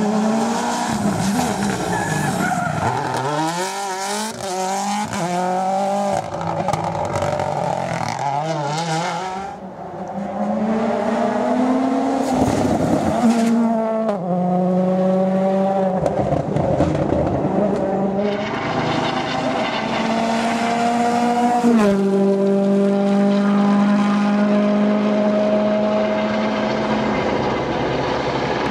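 World Rally Car 1.6-litre turbocharged four-cylinder engines at full throttle, the pitch climbing through each gear and dropping sharply at every upshift, with a brief lift off the throttle about ten seconds in.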